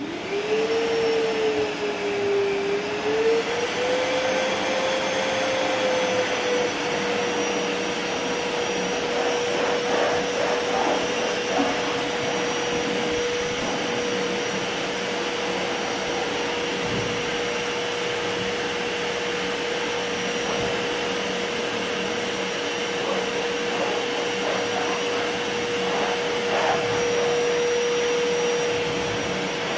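Ramtons 1500-watt wet and dry vacuum cleaner switched on. Its motor whine rises in pitch over the first few seconds as it spins up, then it runs steadily.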